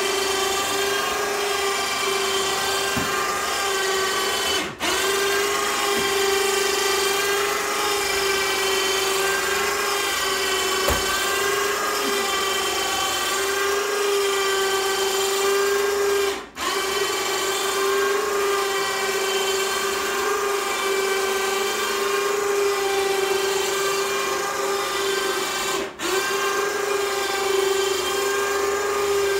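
12-volt, 2000-pound electric winch motor running steadily as it hauls a homemade stair lift along its rail, a loud, even whine. It dips out for an instant three times.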